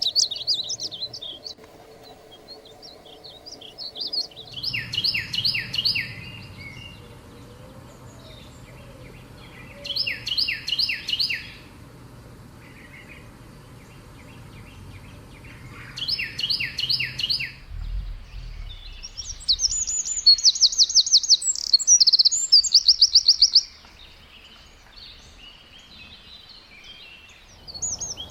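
Songbirds singing. One bird repeats a short phrase of several quick down-slurred whistles three times, about every six seconds. Later, a fast, high trill runs for about four seconds.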